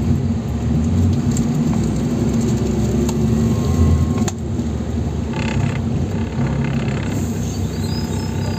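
Cabin noise of a NefAZ 5299 city bus on the move: its Cummins ISBe diesel engine drones steadily under road and tyre rumble.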